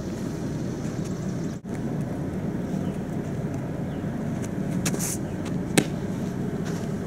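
Steady low outdoor rumble, with one sharp smack near the end: a pitched softball popping into the catcher's mitt.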